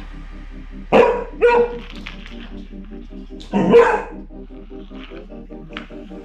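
Beagle barking in excitement at a grooming brush pushed toward him: two sharp barks about a second in, half a second apart, then a longer bark a little past halfway. Background music with a steady beat runs underneath.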